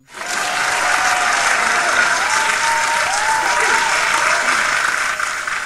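Crowd applause played as a sound effect, with a few whooping voices about halfway through. It starts suddenly and fades out near the end.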